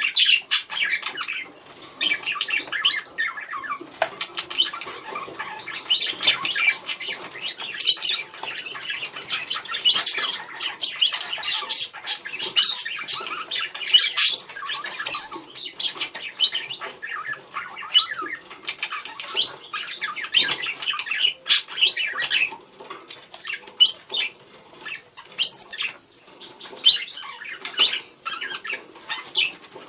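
Several budgerigars chattering and calling to one another in a continuous stream of short chirps and warbles, with many brief upward-rising calls.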